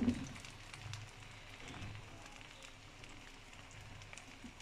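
Omelette batter sizzling faintly in butter and oil in a nonstick frying pan, a soft even crackle with scattered tiny pops.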